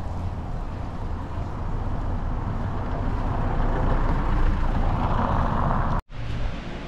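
Street traffic: a road vehicle passing, its noise swelling to a peak about five seconds in. The sound breaks off for an instant just after six seconds, then carries on quieter.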